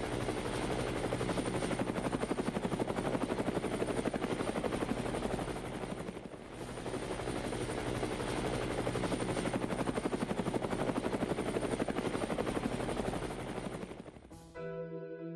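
Helicopter rotor chop, a loud fast steady beating with a brief dip about six seconds in. It cuts off near the end as music with piano and horn begins.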